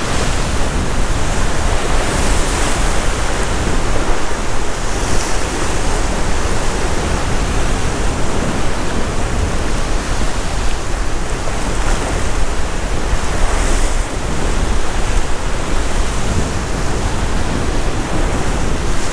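Ocean swell washing and breaking against a rock ledge: a steady rush of surf with a few louder surges, and wind rumbling on the microphone.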